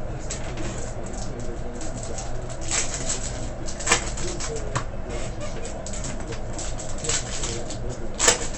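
Trading-card packs being handled and opened: wrappers crackling and cards rustling in quick, irregular clicks, with two sharper snaps, one about four seconds in and one near the end. A steady low hum runs underneath.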